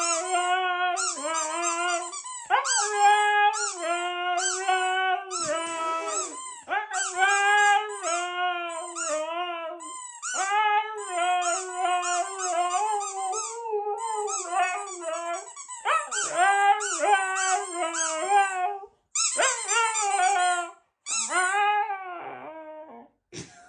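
Dog howling and whining in long warbling strings of calls, a vocal 'talking' back that the owner takes for complaining about not being played with. Short breaks come between the last few calls.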